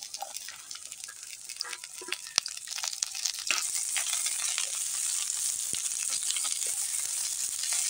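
Drumstick pods and potato wedges sizzling in hot oil in a kadhai while a wooden spatula stirs them. There are scattered clicks in the first half, and the sizzle grows louder about three and a half seconds in and stays steady.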